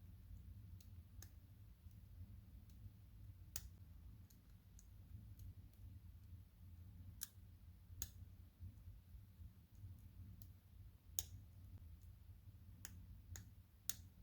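Faint, irregular small clicks of a hook pick lifting the pin stacks in a Mako 427 padlock against tension from the tensioner, about five louder clicks among many fainter ones. So many clicks are the sign of serrated pins catching as they are set.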